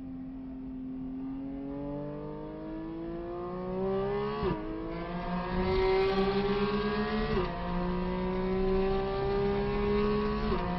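Car engine accelerating hard under load, its pitch climbing steadily and dropping sharply at each upshift: twice in the middle and once more at the end.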